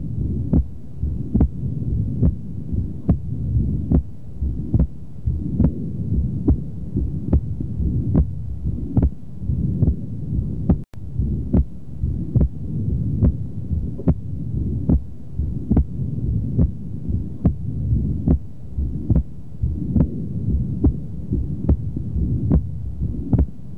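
Heart sounds demonstrating paradoxical (reversed) splitting of the second heart sound, S2, a sign of delayed aortic valve closure such as in left bundle branch block or aortic stenosis. Regular beats come about every 0.8 seconds, roughly 75 a minute, over a steady low rumble. The sound cuts out for an instant about 11 seconds in.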